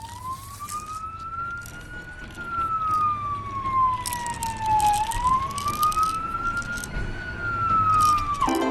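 Wailing siren: one tone slowly rising and falling twice, then cutting off suddenly near the end.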